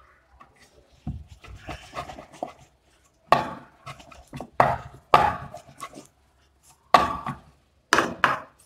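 Wooden rolling pin rolling dough thin on a round wooden board: light rubbing and pressing at first, then from about three seconds in a series of short, louder strokes of the pin across the board.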